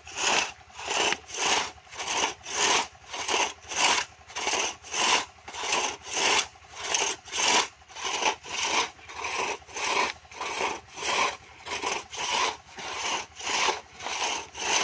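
Two-man crosscut saw cutting through the base of a eucalyptus trunk, pulled back and forth in steady rasping strokes, about two a second.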